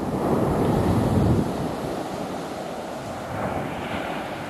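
Ocean surf breaking and washing up a sandy beach, recorded through a Canon M50 camera's built-in microphone. The wash is loudest over the first second and a half, and another wave swells in near the end.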